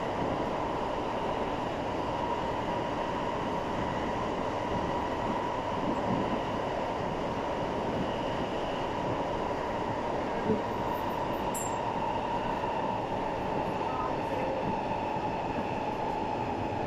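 SMRT C651 metro train running, heard from inside the passenger car: a steady rumble of wheels and running gear with a steady high hum over it. There is one brief knock about ten seconds in.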